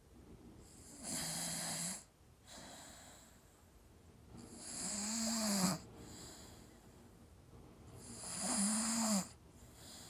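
Staffordshire bull terrier snoring in its sleep: three snores about three and a half seconds apart, each lasting about a second with a buzzing pitched tone, and quiet breathing between them.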